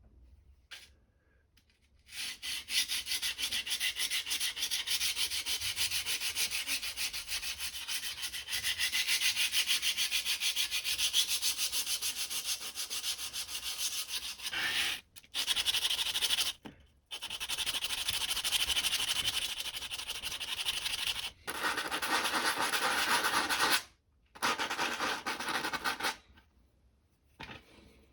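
Hand sanding with sandpaper in rapid back-and-forth strokes, stopping briefly a few times and ending a couple of seconds before the end; the stretch from about 21 to 24 seconds in sounds fuller and lower.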